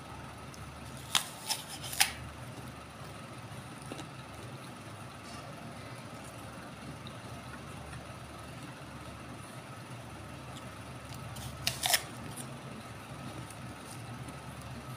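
Crisp crunches of teeth biting into a raw apple: three sharp bites between about one and two seconds in, then two more close together near twelve seconds.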